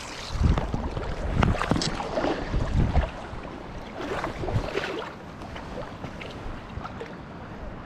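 River water sloshing and splashing close to the microphone, with wind buffeting it in irregular gusts. Busiest in the first three seconds and again around four to five seconds, then settling to a steadier rush of flowing water.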